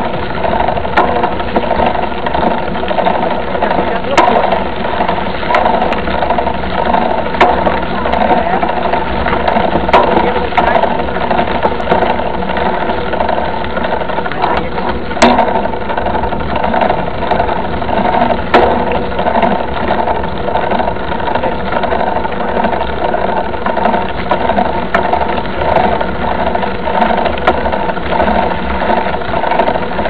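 Steady rattling and rumbling of a bike-mounted camera being shaken over a dirt and gravel road while riding a mountain bike, with scattered sharp knocks from bumps.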